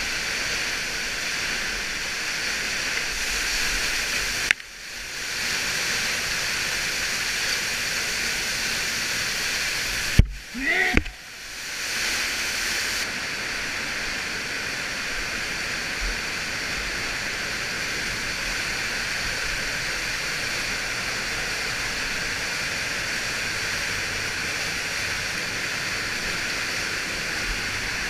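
Steady rush of an underground waterfall, water pouring and spraying down a narrow rock shaft in a cave. The rush drops away briefly twice, about a third of the way in and again around the middle, with a sharp click at the second drop.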